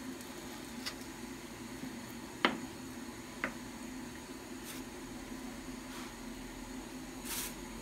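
Knife cutting raw pork on a wooden cutting board: a few sharp knocks of the blade against the board, the loudest about two and a half seconds in, over a steady low hum.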